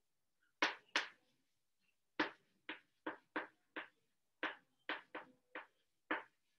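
Chalk writing on a chalkboard: about a dozen short, sharp chalk strokes and taps, irregularly spaced, as a line of words is written out.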